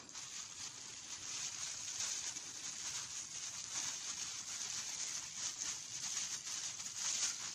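Outdoor ambience: a steady high hiss with faint scattered rustles, a little louder after the first second or so.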